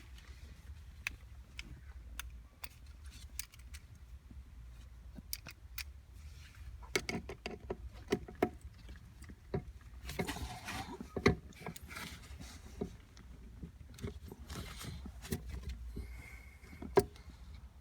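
Hand tool clicking and scraping on a small screw and the shifter's plastic and metal parts, irregular taps and rattles that come thickest in the middle, over a steady low hum. The screw won't turn out, which the owner takes for a stripped head.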